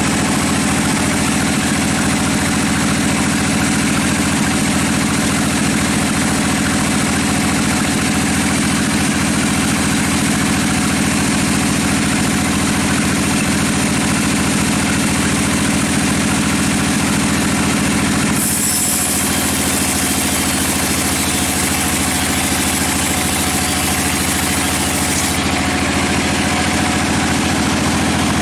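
Sawmill machinery running steadily with an engine-like hum. About two-thirds of the way in the sound shifts, and a brighter, higher noise joins for several seconds before dropping away.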